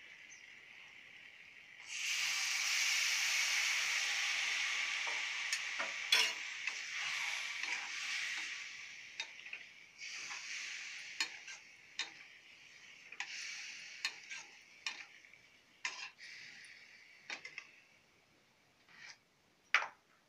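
Raw mango pieces frying with spices in a hot iron kadhai. A sizzle jumps up abruptly about two seconds in and slowly dies away, while a metal spatula knocks and scrapes against the pan, with one sharp knock near the end.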